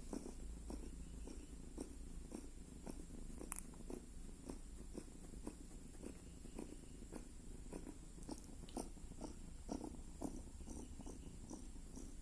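Domestic cat snoring, a faint, steady run of short rasping pulses a few times a second.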